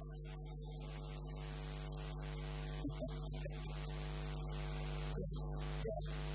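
Steady electrical mains hum with a stack of evenly spaced overtones, growing slightly louder.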